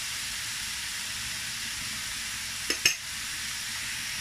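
Diced chicken and onion sizzling steadily in a hot wok, with two sharp knocks of a spatula against the pan close together a little before the end.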